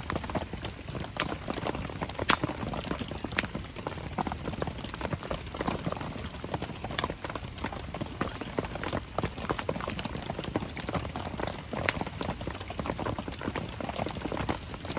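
Wood campfire crackling, with a few sharp louder pops every few seconds, over a steady patter of rain.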